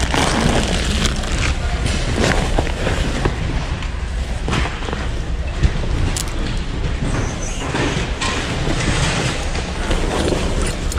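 Clothing rustling and being pushed around as hands rummage through a heaped bin of garments close to the microphone, with low thumps and rumble from the camera being jostled.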